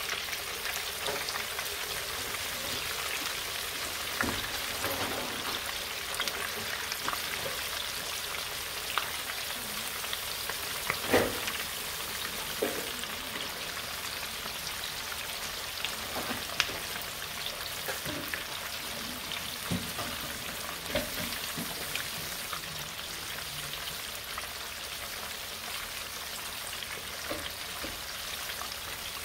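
Stuffed catfish fillets deep-frying in hot canola oil in an enameled cast-iron Dutch oven: a steady bubbling sizzle with scattered pops and crackles, one louder than the rest about eleven seconds in.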